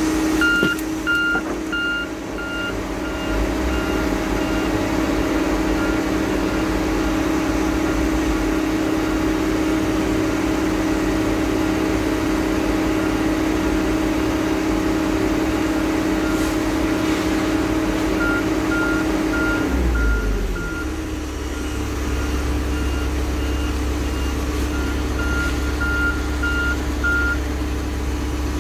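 Heavy diesel logging equipment running steadily, its back-up alarm beeping in three runs of evenly spaced beeps. About twenty seconds in, the engine revs drop and it settles into a lower, deeper rumble.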